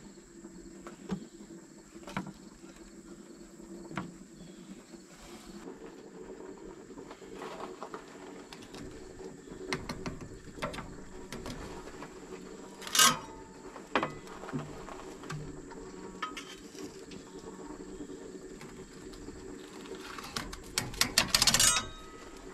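Metal spatulas knocking and scraping on the steel cooking grate of a Big Green Egg kamado grill as a raw meatloaf is slid onto it: scattered light knocks, one sharp ringing clank about halfway through, and a quick run of scraping clinks near the end, over a steady low hum.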